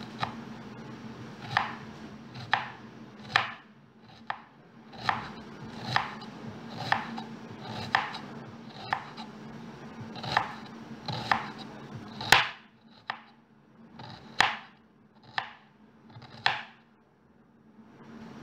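Kitchen knife slicing a red onion, each stroke cutting through and knocking onto the wooden surface, about one slice a second, some strokes louder than others.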